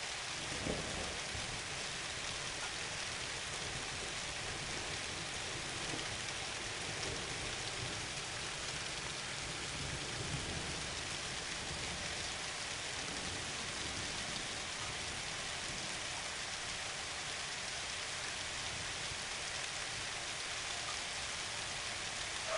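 Steady rain falling in a thunderstorm, an even hiss of drops with faint low rumbles now and then.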